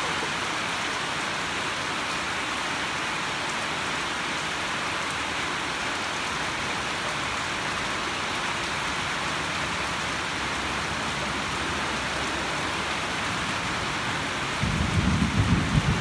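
Heavy rain falling with a steady hiss. Near the end a loud low rumble starts and keeps going.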